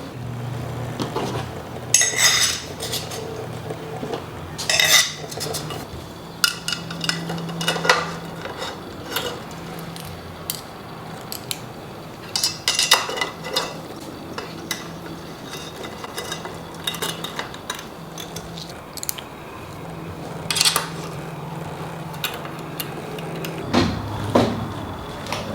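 Metal tools and bicycle parts clinking and clattering on a workbench as a mountain bike is assembled, with sharp knocks scattered irregularly through.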